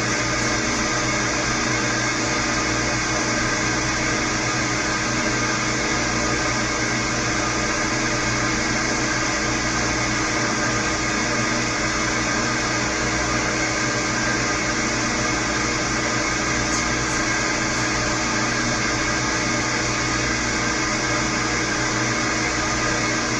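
Milling machine running steadily with a Woodruff keyseat cutter fed slowly into a baler roller shaft, a continuous machine hum with many steady tones.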